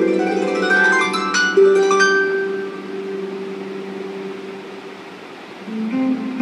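Plucked-string music, harp-like: a quick run of notes, then one held note slowly dying away, with a new plucked tune starting near the end.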